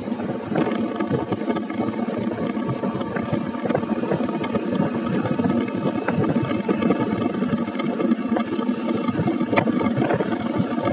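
Motorcycle ridden along the road: wind rushing and buffeting over the microphone, mixed with the engine and road noise, as a steady rough rush.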